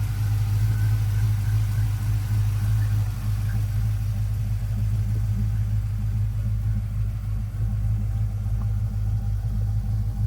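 5.3-litre LS Vortec V8 with a mild cam idling steadily through a stainless steel dual exhaust, a deep, even low hum with no revving.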